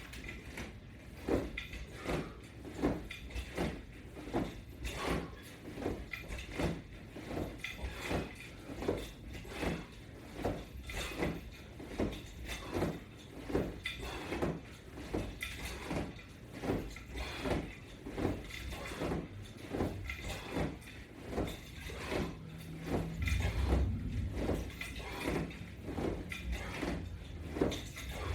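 Workout repetitions on a wall-mounted resistance-band and strap attachment system: a steady rhythm of soft knocks and creaks, about three every two seconds. A low hum joins in for a few seconds near the end.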